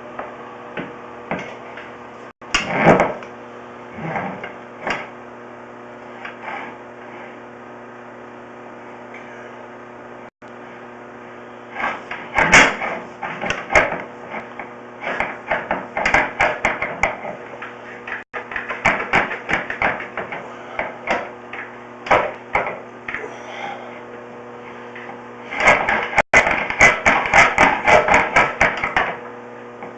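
Irregular knocks, clicks and rattles from a sewer inspection camera's push cable being worked into a drain pipe, coming in several clusters, over a steady electrical hum.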